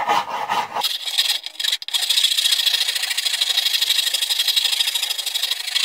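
Wood rasp scraping along the edge of a pallet board in rapid back-and-forth strokes, rounding the edge over; a harsh, hissy rasping that dips briefly about two seconds in.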